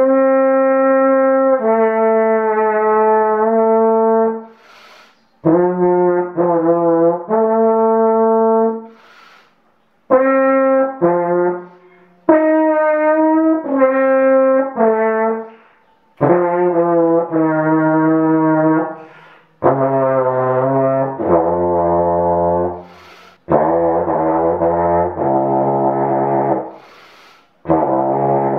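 Wooden alphorn played solo: a slow melody of held notes in short phrases, with audible breaths between them, sinking into the horn's low register in the second half. The melody stretches the horn's first seven natural tones to twenty different pitches.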